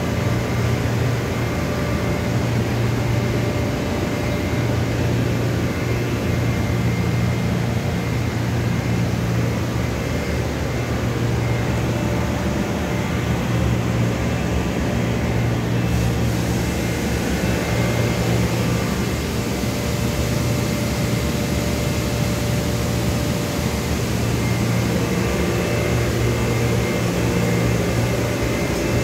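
Steady low hum of running machinery from a powered-up CNC mill-turn lathe and its ancillary units, with faint steady high tones over it.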